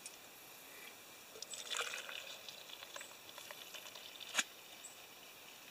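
Hot coffee poured from a stainless-steel camp percolator into a stainless travel mug: a soft trickle, with a single sharp click about four seconds in.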